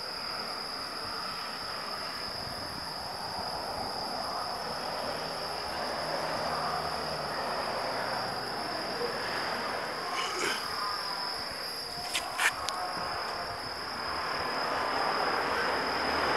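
Outdoor background with a steady, high-pitched insect drone and a low, even hiss. There are a few sharp clicks about two-thirds of the way through.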